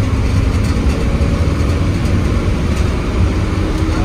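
Diesel engine of a Hino AK8 bus running: a steady low rumble with road noise over it.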